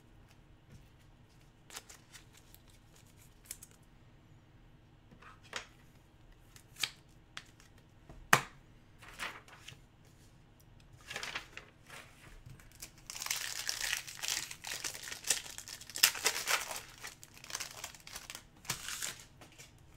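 Foil wrapper of a hockey card pack crinkling and tearing as it is opened, loudest in the last third. Before that come a few scattered light knocks and clicks of things being handled on a wooden table.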